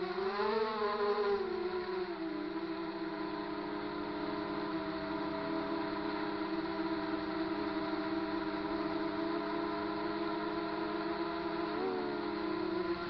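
Racing quadcopter's four Multistar 2206 2150kv brushless motors with 5-inch DAL 5045 props whining in flight, heard through the onboard action camera. The pitch swells for a moment about a second in, then holds steady, with a quick dip and recovery near the end.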